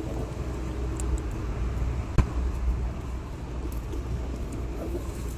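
Steady low rumble of road traffic on the bridge overhead, with one sharp click a little over two seconds in.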